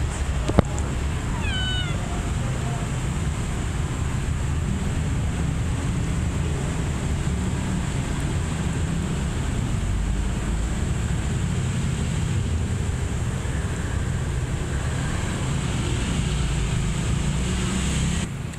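A kitten gives a quick run of short, high mews about a second and a half in, just after a sharp click. A steady low hum and hiss fill the rest.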